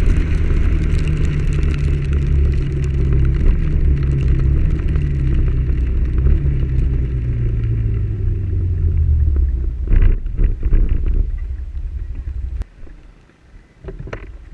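Motorcycle engine running under wind and road noise, its pitch sinking slowly as the bike rolls downhill. A quick cluster of knocks comes about ten seconds in, then the engine sound stops abruptly, leaving a quiet background with a few taps near the end.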